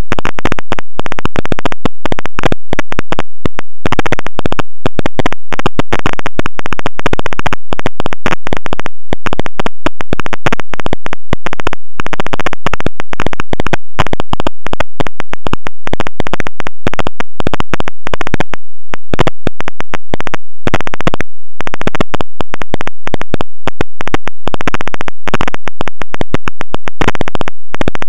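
Loud, harsh electrical buzzing and crackling at a constant level, broken by rapid stuttering dropouts: interference noise on a surveillance camera's audio track.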